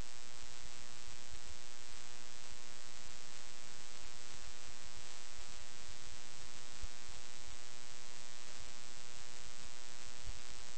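Steady electrical hum with a constant hiss underneath, unchanging throughout: mains hum and noise on the recording's audio line.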